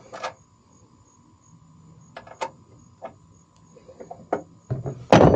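Scattered metallic clicks and knocks of hand tools working on a pickup's tailgate hardware, with a loud clatter near the end.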